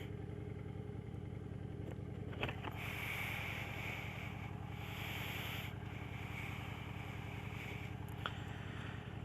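Motorcycle engine idling steadily while stopped, with a couple of faint clicks.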